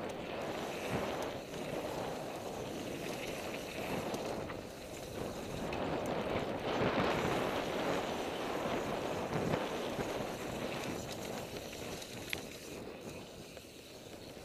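Mountain bike, an NS Bikes Soda, riding fast down a dirt flow trail: tyres rolling on packed dirt, with occasional clicks and rattles from the bike. Wind buffets the microphone, and the rushing noise swells and eases as the speed changes.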